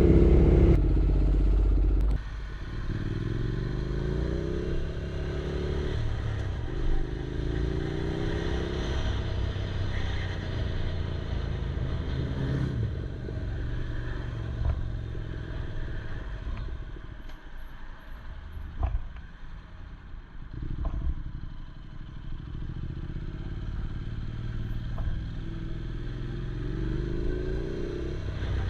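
Yamaha R6 sport bike's inline-four engine while riding, picked up by an on-bike camera: loud at first, then several rising revs as it pulls through the gears. It eases off to a quieter stretch past the middle, with a few sharp clicks, then builds again near the end.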